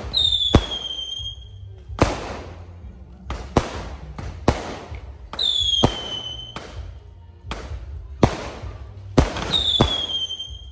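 A 36-shot aerial fireworks cake firing: a sharp bang of a launch or shell burst every second or so. Three whistles, each about a second long and falling in pitch, come near the start, the middle and the end.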